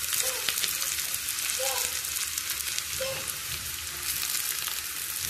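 Sliced small onions (shallots) frying in hot coconut oil in a small pan, with a steady sizzle full of fine crackles as they are stirred. This is the tempering stage for the curry.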